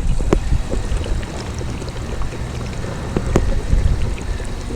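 Wind buffeting the microphone: a steady low rumble, with a couple of light clicks.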